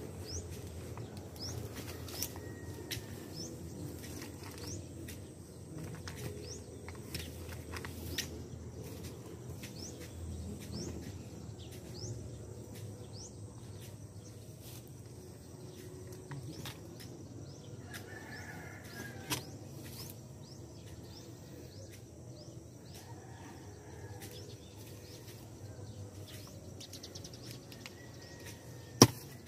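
Digging by hand in dry grass and soil: scattered scrapes, rustles and small knocks as a hoe and gloved hands work at a hole, with one sharp hoe strike into the ground near the end.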